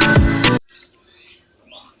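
Upbeat background music with a steady beat that cuts off suddenly about half a second in, leaving only faint, scattered small sounds.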